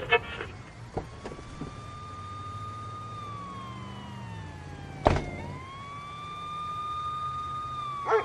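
A siren wailing in two slow cycles. Each rises quickly, holds a high tone for a couple of seconds, then glides down, with a sharp click between them about five seconds in. A low steady hum runs underneath.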